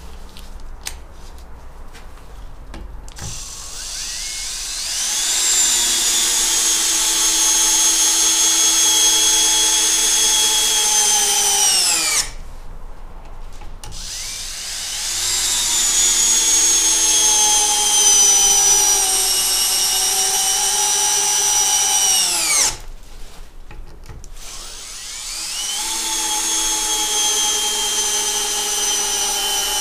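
Bosch GSR 10,8 V-EC brushless cordless drill driver on first speed driving 6×100 mm wood screws into a timber beam: after a few clicks at first, the motor whines up to speed, runs steadily with its pitch sagging slightly under load, and cuts off sharply, three screw drives in a row, twice stopping and the third still running at the end.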